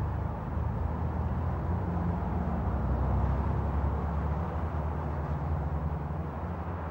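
Steady low hum of a car's engine and road noise, heard inside the cabin while driving along an open road.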